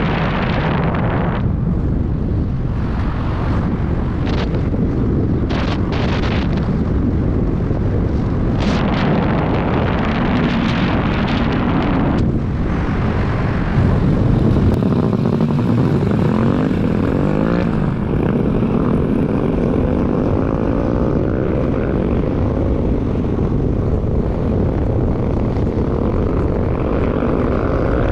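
A car being driven, with steady engine and road noise; in the second half the engine's pitch rises and falls as it changes speed.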